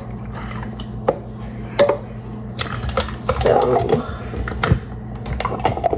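Scattered light clicks and knocks of plastic breast-milk bottles and a milk pitcher being handled on a kitchen counter, over a low steady hum.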